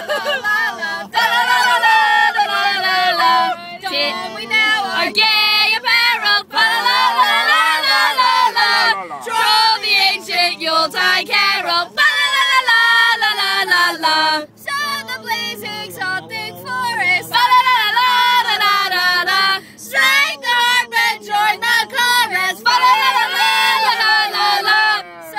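A group of adults and children singing a Christmas carol together, loudly and on purpose badly.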